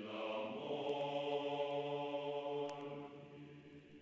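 Outro music: a single held chant-like drone or chord that swells in and then fades down about three seconds in.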